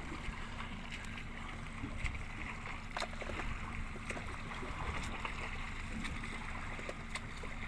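Steady low rumble of an escort boat under way, with water and wind noise.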